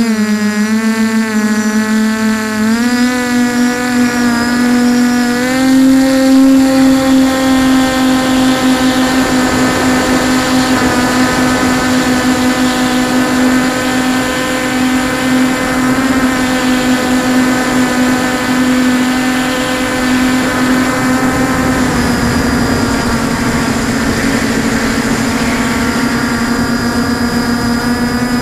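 QAV400 quadcopter's brushless motors and propellers whining, heard close up from a camera on the frame. The pitch steps up twice in the first six seconds as it takes off, then holds steady in flight.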